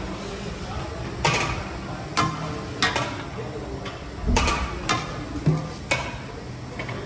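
Ladle clinking against the metal rim of a large pot of nihari and a steel serving bowl as the stew is ladled out: a run of sharp metallic knocks, one every second or so.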